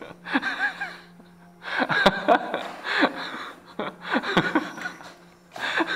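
People laughing and chuckling in short bursts with pauses between, after one has been startled.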